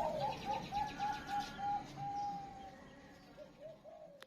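Zebra dove (perkutut) cooing: a quick run of short rising-and-falling coos, about four a second, then a longer held note about two seconds in, and a few softer coos that fade out.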